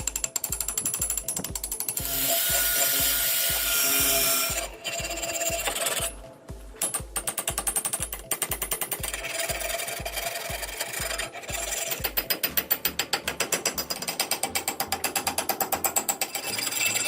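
Rapid mechanical clicking, with a stretch of rough scraping noise about two seconds in, over a steady low beat.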